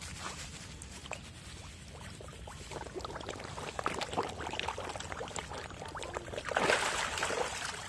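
Water splashing and sloshing as a tightly packed crowd of koi churn at the pond's surface, with many small sharp splashes and one louder splash near the end.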